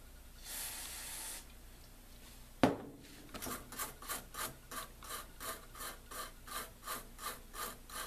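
A small brush scrubs back and forth across the solder side of a printed circuit board, about four strokes a second, working electronic contact cleaner into the flux to lift it. Before the scrubbing there is a short hiss of spray about half a second in and a sharp click a little after two and a half seconds.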